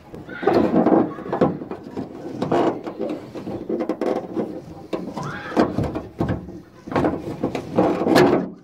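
Sliding-door handle and lock assembly inside a van door being worked loose by hand: repeated bursts of rattling, scraping and clicking of metal and plastic parts as the jammed handle is pulled and wiggled.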